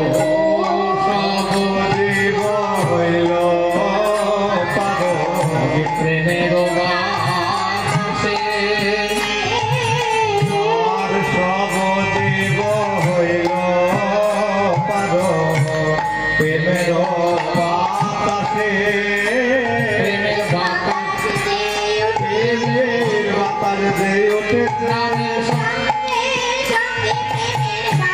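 Bengali lila kirtan: a young singer's voice carries a devotional melody over harmonium, bamboo flute and hand-drum accompaniment, with no break.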